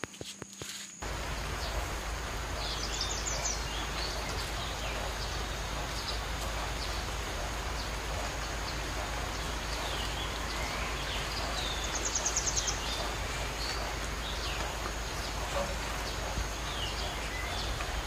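Tropical forest ambience: a steady noisy hiss with small birds chirping throughout, two short rapid trills about three seconds in and again about twelve seconds in, and a thin high steady whine typical of insects. The hiss comes in abruptly about a second in.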